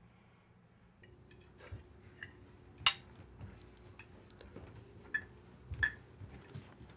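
Scattered light clinks and knocks of household objects being handled, the sharpest about three seconds in, over a faint steady hum that starts about a second in.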